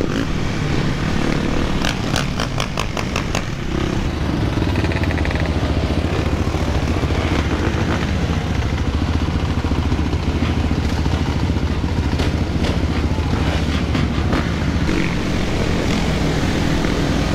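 Dirt bike and ATV engines running together, with a steady low engine drone close to the microphone. A quick run of sharp clicks comes about two to three and a half seconds in.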